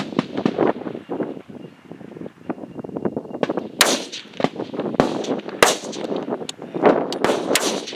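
Several rifle shots from competitors' F-Class target rifles on a 600-yard firing line, cracking at irregular intervals, three of them much louder than the rest, over steady background noise.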